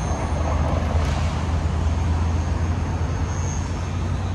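Street traffic: a steady low engine drone over a wash of road noise.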